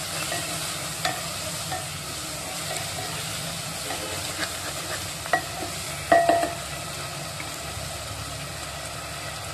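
Tomato masala frying in a pan with a steady sizzle while a wooden spatula stirs it. The spatula scrapes and knocks against the pan a few times, loudest about five and six seconds in.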